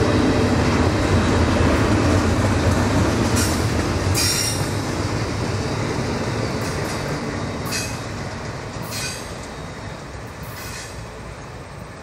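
Canadian Pacific double-stack intermodal container cars rolling past with a steady rumble, broken by several short, high-pitched wheel squeals. The sound fades gradually after a few seconds as the train moves away.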